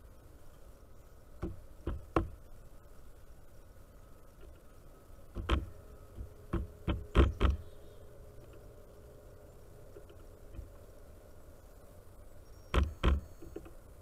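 Irregular sharp knocks of bird bills striking a wooden platform feeder: three near the start, a quick cluster of about five in the middle, and two near the end.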